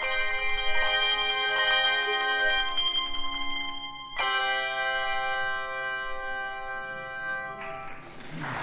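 Handbell choir ringing chords. About halfway through, a final full chord is struck and rings out, then is damped off shortly before the end, where applause begins.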